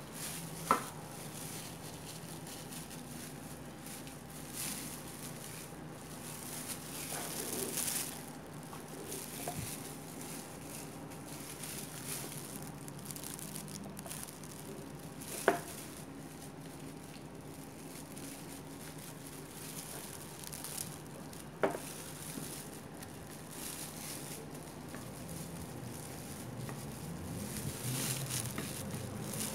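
Plastic-gloved hands pressing grated beetroot into a baking dish and spreading mayonnaise over it: soft squishing and crinkling over a low steady hum. Three short sharp clicks, the loudest sounds, come about a second in, about halfway through and about two-thirds through.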